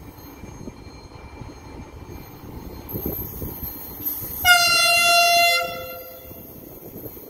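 Trenitalia ETR 104 Pop electric multiple unit approaching with a low rumble. About four and a half seconds in, it sounds one horn blast lasting a little over a second, with its pitch sinking slightly at the end.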